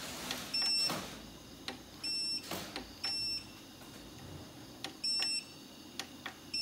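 Growatt SPF5000ES hybrid inverter's control panel beeping as its buttons are pressed: about four short high beeps, a second or two apart, with faint button clicks between. These are keypress beeps while the float charging voltage is being stepped through in the settings menu.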